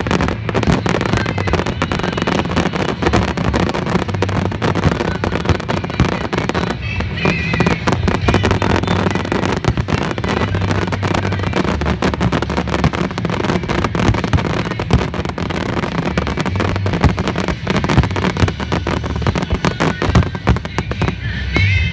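Fireworks display with rapid, dense crackling and bursting of many shells, over music with a steady bass line.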